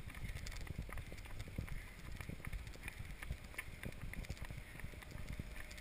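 Running footsteps of an adult and a small child on an asphalt path: quick, irregular soft thumps, mixed with the bump and rustle of a handheld camera jostling as they run.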